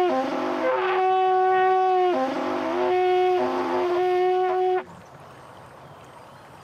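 A long straight herald's trumpet playing a fanfare: long held high notes broken three times by short dips to a lower note. It cuts off suddenly about five seconds in.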